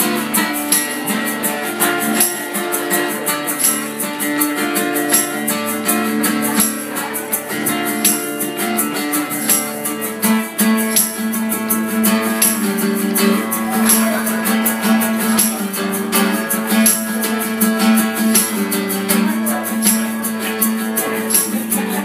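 Acoustic guitar strummed and picked in a steady rhythm, with a hand shaker or maraca keeping time in short, regular ticks.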